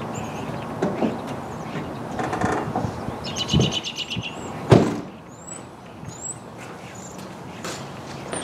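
2015 Lexus ES 350's parking brake being set with a quick run of ratchet clicks, then the driver's door shut with a solid thump about five seconds in.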